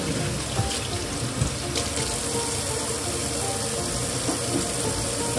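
Kitchen faucet running steadily into a stainless steel sink, the stream splashing over a child's hands as he rinses them.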